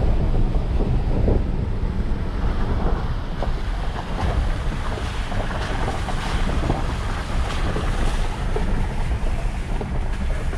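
Toyota Tacoma pickup driving on a wet gravel trail, heard from inside the cab: steady low road and engine noise with scattered small clicks and pops of gravel under the tyres.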